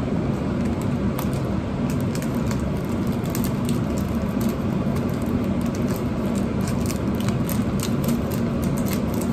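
Small plastic seasoning sachets from instant noodle cups crinkling as they are torn and squeezed out, in scattered short crackles over a steady low hum.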